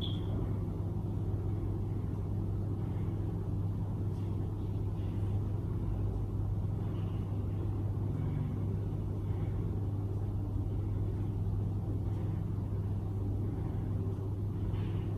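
A steady low mechanical hum with a faint rumble, unchanging throughout.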